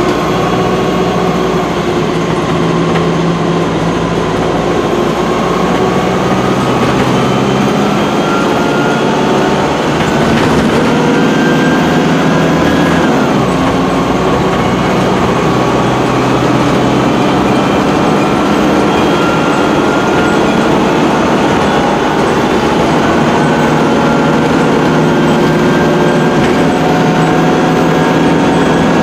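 Cummins ISC Euro 3 diesel engine of a Dennis Dart SLF bus, heard from inside at the rear, working hard as the bus accelerates. Its note and whine rise steadily, drop sharply once about 13 seconds in as it changes up, then climb again.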